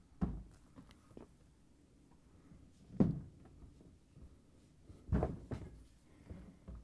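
Refrigerator door being set on its hinge and closed against the cabinet: a few dull thumps and knocks, the loudest about three seconds in and two more just after five seconds.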